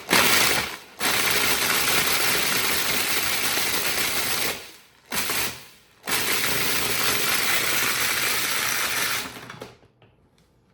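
Food processor blitzing dried, crumbly poutine sauce into powder, run in a short pulse, then about three seconds, another brief pulse, and a second run of about three seconds. Loud.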